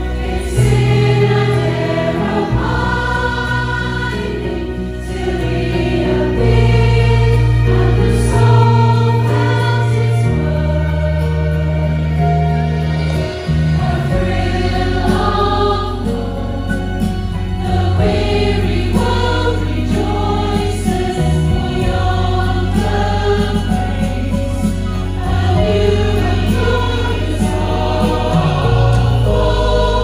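A choir singing in chorus over a low accompaniment whose bass notes change every second or two.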